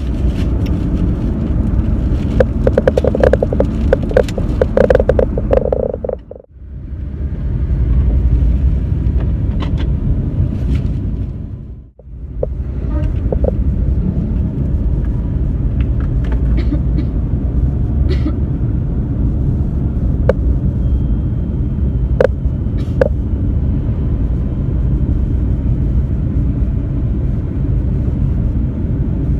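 Steady low rumble of a car heard from inside the cabin, with scattered clicks and rustles. The sound drops out briefly twice.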